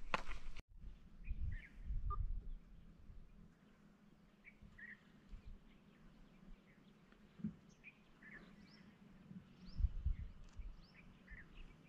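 Wild birds chirping: many short, scattered calls over a low outdoor rumble. A few brief knocks at the very start stop abruptly about half a second in.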